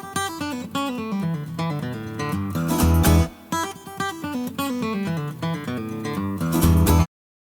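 Background music led by a strummed acoustic guitar, cutting off abruptly about seven seconds in.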